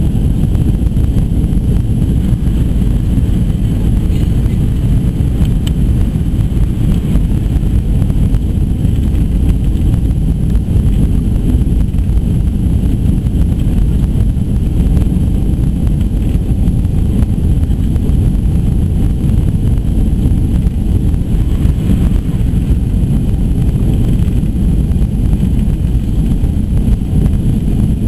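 Steady low rumble of Pratt & Whitney JT8D engine and airflow noise inside the passenger cabin of a Boeing 737-200 Advanced jetliner in flight.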